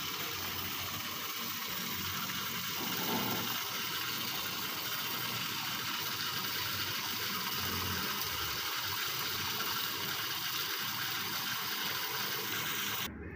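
Tap water running steadily into a metal plate as rice is washed in it by hand. The sound stops abruptly near the end.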